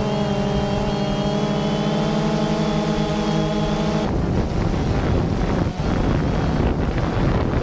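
Quadcopter's rotors humming as a steady multi-tone drone. About four seconds in the hum cuts off abruptly to a rushing wind noise.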